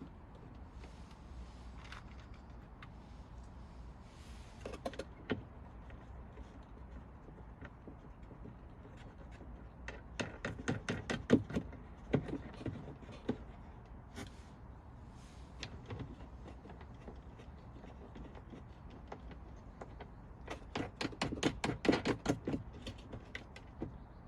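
Hand work on the car's plastic trim and brake light parts: scattered single clicks and knocks, with two runs of rapid clicking and rattling, one midway through and one near the end.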